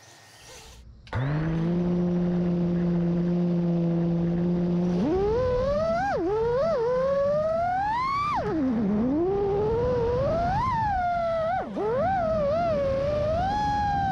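FPV quadcopter's brushless motors. About a second in they start spinning and hold a steady idle hum. From about five seconds the pitch climbs, dips and swoops sharply up and down as the throttle changes in flight.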